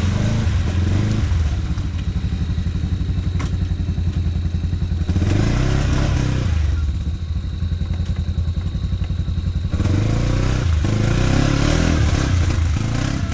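ATV engine running under load as the quad churns through a deep mudhole, its revs rising and falling with the throttle, with louder surges about five and ten seconds in.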